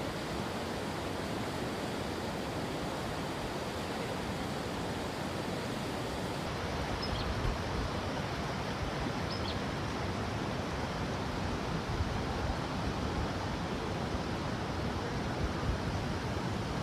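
Steady rushing noise with no change in level, and two faint short chirps about halfway through.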